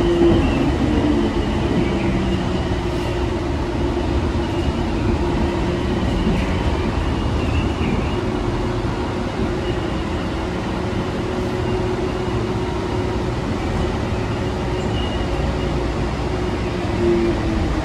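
Interior running noise of a Bombardier Innovia APM 300 rubber-tyred automated people mover car: a steady rumble with a held whine. It swells slightly near the end as the car reaches a station platform.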